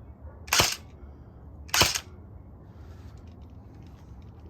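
Crosman Pulse R76 airsoft gun fired twice, sharp snapping shots about a second apart, with a T238 tracer unit on the muzzle lighting glow-in-the-dark BBs.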